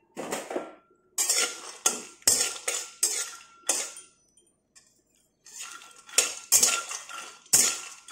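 Flat metal spatula scraping and tossing nuts and cardamom around a dry metal kadai while they are dry-roasted, in a series of quick scraping strokes with a pause of about a second and a half midway.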